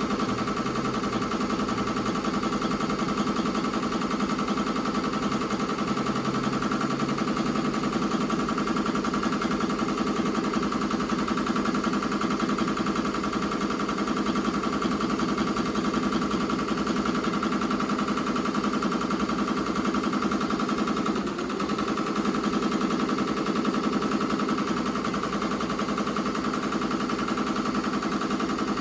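Ricoma MT-2002-8S eight-needle embroidery machine stitching at speed, its needle bar making a rapid, even clatter. The sound briefly slackens once, about two-thirds of the way through.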